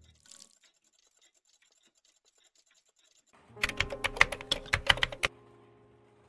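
Typing sound effect: a quick run of about a dozen keyboard clicks lasting under two seconds, starting about three and a half seconds in, over a low steady hum that fades away after them. At the very start the last of the intro music dies out.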